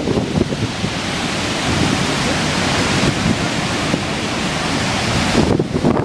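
Lower Falls of the Yellowstone River, a large waterfall, pouring over its brink: a loud, steady rushing hiss of falling water. Wind buffets the microphone near the end.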